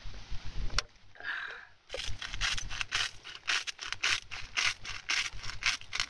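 A hand-twisted pepper grinder being turned to season a steak, grinding in short rapid strokes about four or five a second, starting about two seconds in. Before that, a swig from a beer can.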